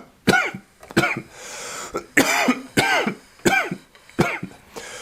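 A person coughing over and over in hard, hacking coughs, about seven of them at an even pace, with a raspy drawn breath between the second and third. It is the 'corona cough' of someone sick with suspected COVID-19.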